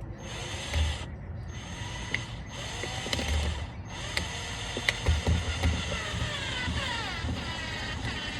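Power drill driving a screw, run in three short bursts and then more steadily from about four seconds in, its motor pitch sliding as the speed changes.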